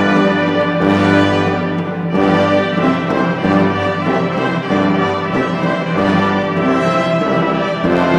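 Orchestral music led by brass, playing slow held chords that change every second or so.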